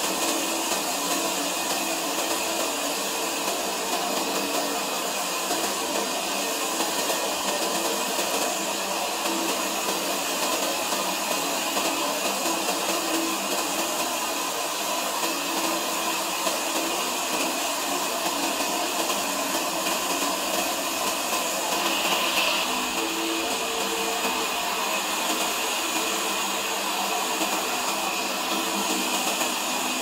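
Sawmill saw running steadily: a continuous, unbroken whirring noise, with a brief louder hiss about two-thirds of the way through.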